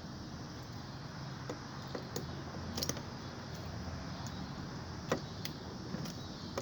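A handful of light, scattered clicks and taps of hand tools on metal during teardown, over a steady low hum.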